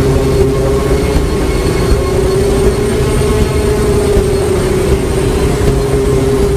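A steady, loud drone on the soundtrack: a held low tone with fainter higher tones and a rumble beneath, unchanging throughout.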